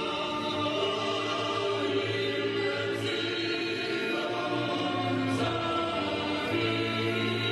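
A group of singers performing a song with musical accompaniment through loudspeakers, in long held notes.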